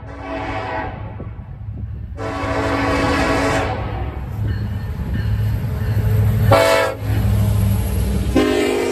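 Locomotive horn blowing long, long, short, then a long blast starting near the end, the standard grade-crossing signal, over the low rumble of the passing train, which grows louder midway.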